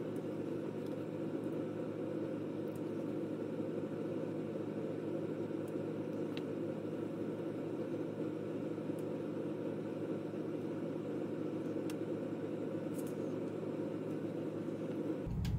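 Steady low hum of background noise, with a few faint clicks as small model parts are handled.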